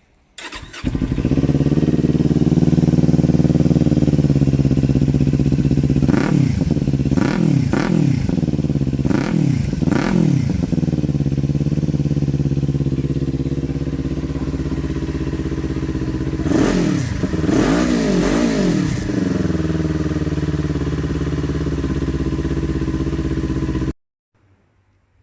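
Kawasaki Ninja 400 parallel-twin engine breathing through a cheap aftermarket slip-on silencer. It starts up, idles, and is revved in a string of short throttle blips about six seconds in and again around seventeen seconds, then cuts off suddenly near the end.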